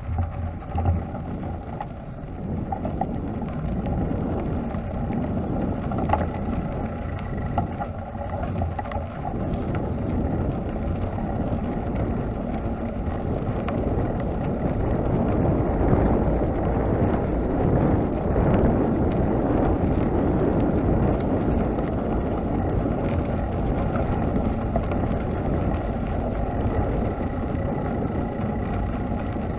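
Wind buffeting the microphone of a camera moving along a gravel path: a steady low rumble that grows louder a few seconds in as the pace picks up.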